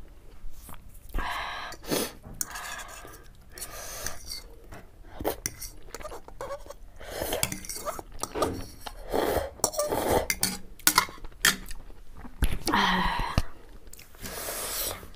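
Metal spoon and fork clinking and scraping against a ceramic bowl while scooping chicken thukpa noodle soup, in a string of sharp clicks. Close-miked eating sounds fill the gaps.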